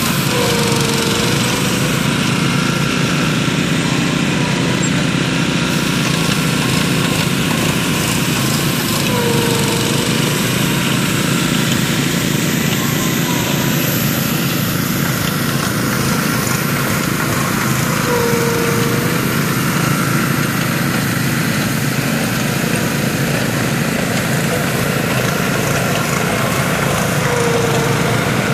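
Small gasoline engines of a Graco LineLazer 3900 airless line striper and its ride-on driver unit running steadily as the machine rolls along. A short squeal recurs about every nine seconds.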